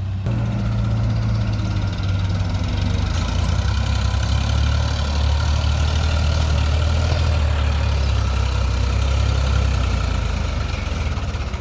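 A diesel engine of a tractor or backhoe-type farm machine running steadily with a deep, even hum.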